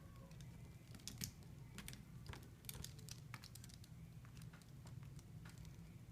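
Faint, scattered light clicks and taps of small tools and phone parts being handled during iPhone repair reassembly, over a steady low hum.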